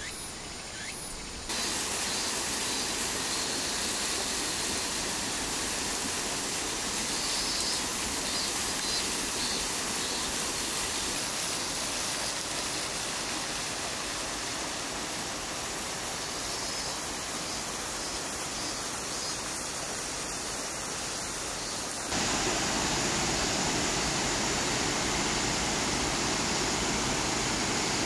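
Flowing water rushing steadily, with faint insect chirps now and then. About two-thirds of the way through, the rush turns louder and deeper.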